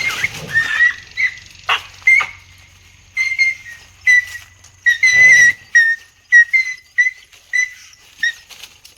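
A dog giving a run of short, high-pitched yelps, about two a second, with a louder, rougher cry about five seconds in.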